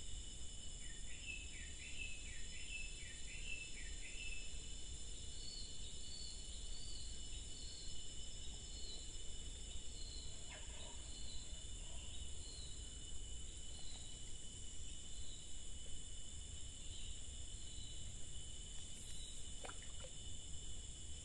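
Steady high-pitched drone of forest insects beside a lake. A bird sings a quick run of warbling notes in the first few seconds, then a short high chirp repeats about once a second until around the middle.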